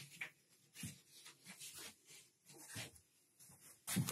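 A wooden floor panel being handled and fitted into place: a few irregular light knocks and scrapes of wood, the loudest knock near the end.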